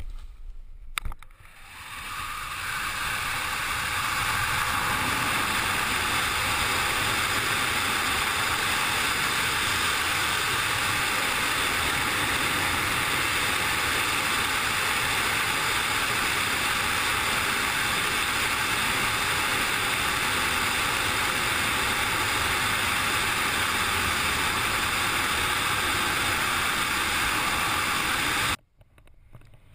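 Wind rushing over a helmet-mounted camera in wingsuit BASE flight: the rush builds over the first few seconds after the exit as the jumper gains speed, then holds as a steady loud noise. It cuts off suddenly near the end.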